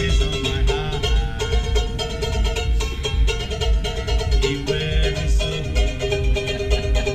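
Live music: a fast-strummed ukulele over a steady thumping drum beat.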